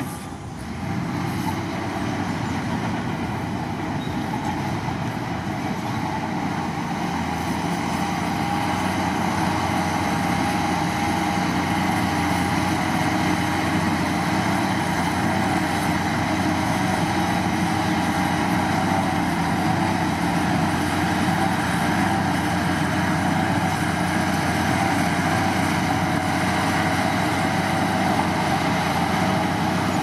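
The diesel engine of a heavy earthmoving machine running steadily under work.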